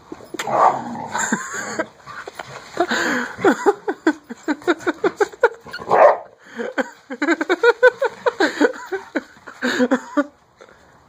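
Two dogs play-fighting, giving a rapid, nearly nonstop run of short barks and yips that breaks off briefly twice and stops shortly before the end.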